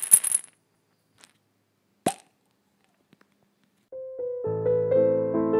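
A short sparkling shimmer at the start and a single short pop about two seconds in, then a pause. Soft piano music comes in near the end: a held note, then chords.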